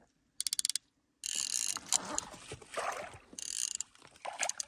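Fly reel's click-and-pawl ratchet buzzing in three short bursts as a hooked trout is reeled in, with the fish splashing at the surface near the end.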